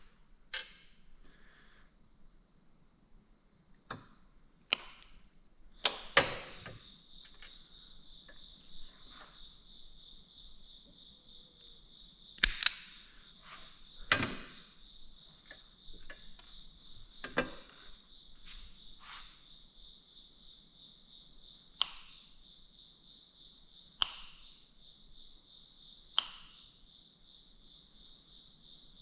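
Steady high-pitched chirring of crickets or other insects, broken about a dozen times by sharp clicks and knocks from hand work, with the loudest around the middle of the stretch.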